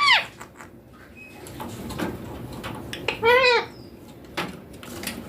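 Indian ringneck parakeet giving one short call that rises and falls in pitch about three seconds in, just after the end of a rising call at the very start, with a few small clicks and knocks around them.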